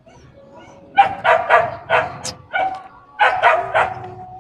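A dog barking repeatedly in quick runs of short barks, starting about a second in.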